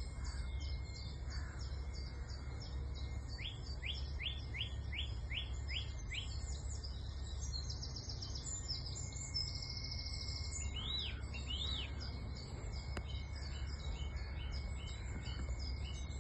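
Several wild birds singing and calling, with repeated trills and a run of about seven quick rising whistled notes a few seconds in, over a steady low rumble.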